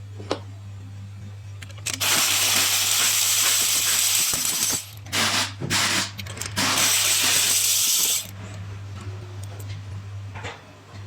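Compressed-air blow gun hissing in several blasts: one long blast, then a few short puffs, then another long blast, cut off sharply. A steady low hum runs underneath.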